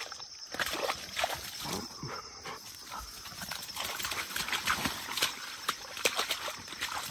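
A dog splashing and scrambling through wet mud, making irregular slaps and squelches. Insects chirr steadily behind it.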